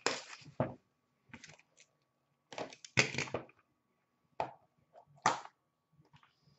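Cardboard trading-card hobby box being handled: a handful of short knocks, scrapes and rustles of card stock, spaced a second or so apart. The loudest comes about three seconds in.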